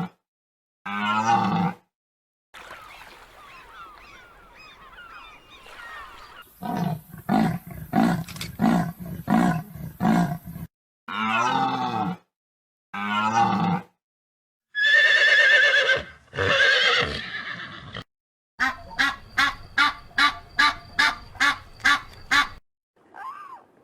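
A string of short farm-animal calls, each cut off by a brief silence, with a horse's whinny among them. The calls include separate pitched cries and a rapid run of repeated calls, about three a second, near the end.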